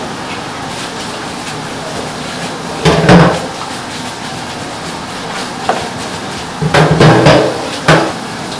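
Wooden tofu-press moulds knocked and set down on a steel work counter: a hard wooden knock about three seconds in, then a quick run of knocks around seven to eight seconds, over steady background noise.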